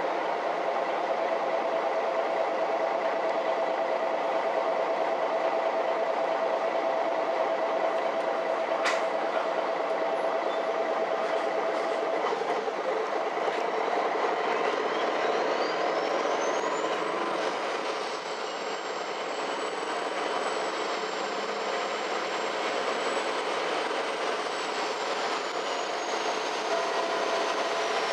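Ride noise inside a MAN NG 313 articulated city bus: the diesel engine runs steadily, with a sharp click about nine seconds in. About halfway through, a high whine rises, holds, and starts to fall again near the end. Recorded on an old camcorder.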